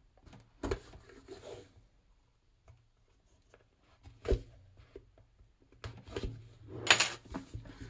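Cardboard phone box being worked open by hand on a wooden table: scattered rubbing and scraping, with sharp knocks about a second in, past the middle, and a louder one near the end.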